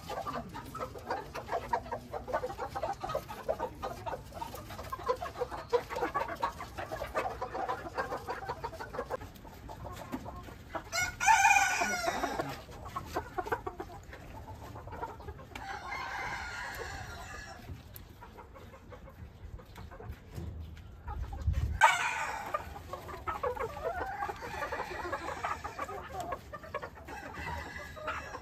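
Ko Shamo bantam gamecocks crowing, two loud crows about 11 and 22 seconds in with a fainter one between them, over steady clucking from the flock.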